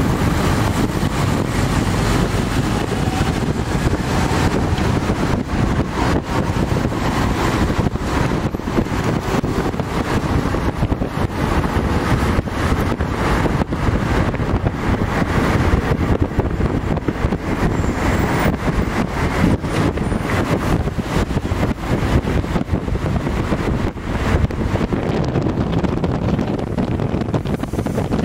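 Steady, loud rumble of a moving vehicle with wind buffeting the microphone.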